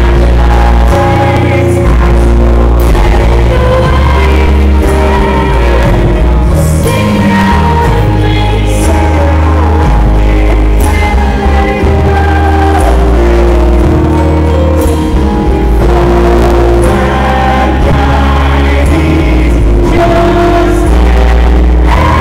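Loud live pop music from a band: held bass notes that change every second or two under keyboards and a woman's wordless singing.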